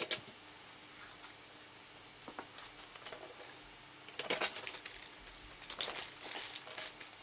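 Crinkling and light clicking from small plastic items being handled by hand, with two louder flurries of crackle in the second half.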